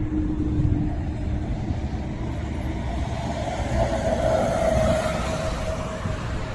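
City road traffic passing close by, with an articulated bus and a tram going past. A humming tone swells and fades in the second half over a steady low rumble.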